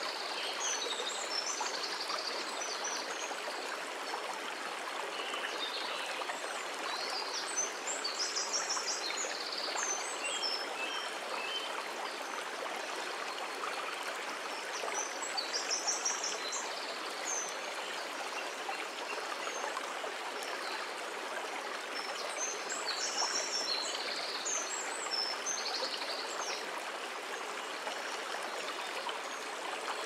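Stream flowing steadily, with birds chirping in short bursts now and then.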